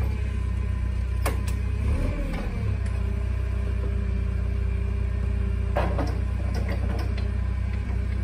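Toyota forklift engine idling steadily, with a few sharp clicks and knocks, once about a second in and again near six seconds.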